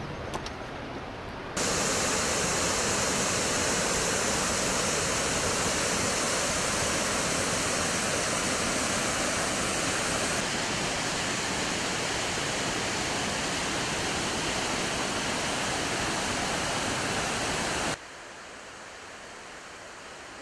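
Steady rushing of white water in a mountain river gorge, an even hiss and rumble of falling and tumbling water. It starts suddenly about a second and a half in and cuts off near the end to a much fainter hush.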